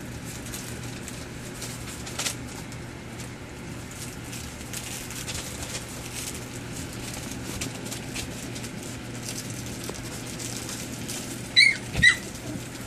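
Pembroke Welsh Corgi puppies scuffling on newspaper, their paws rustling and scratching the paper, then two sharp, high yips close together near the end.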